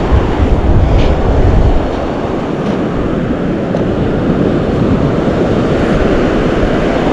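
Wind rushing over the microphone on an open beach, heaviest in the first two seconds, over the steady roar of breaking surf.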